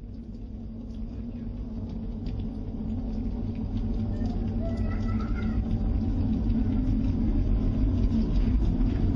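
A deep, loud rumbling drone of unidentified origin, growing steadily louder.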